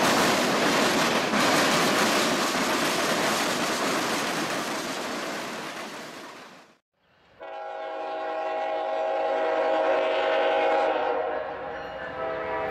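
Freight cars rolling past with a steady wheel-on-rail rumble that fades away. Then, after a brief break, an approaching diesel locomotive's air horn sounds one long, continuous chord for about five seconds.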